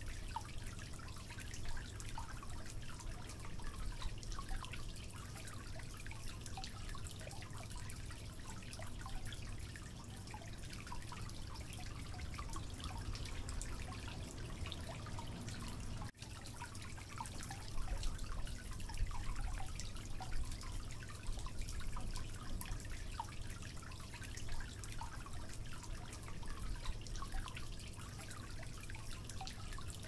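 Water trickling and dripping from tier to tier of a small tabletop cascade fountain into its basin: a steady splashing trickle full of small drips, over a low steady hum. The sound cuts out briefly about halfway through.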